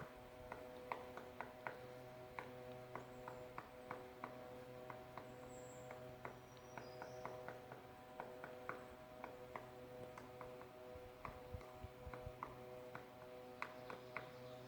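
Pileated woodpecker pecking at wood: faint, irregular sharp taps, a few a second, over a steady low hum, with a few faint high bird chirps in the middle.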